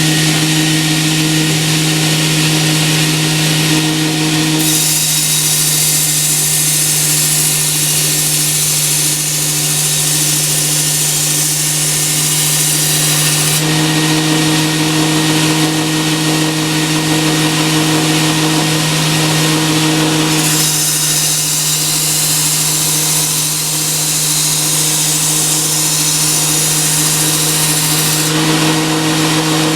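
Work Sharp Ken Onion sharpener's motor running the Blade Grinder attachment's coarse abrasive belt with a steady hum. Twice, for about eight seconds each (starting about five seconds in and again past twenty seconds), a knife blade is drawn along the belt, adding a loud hissing grind of steel on abrasive as the edge is ground.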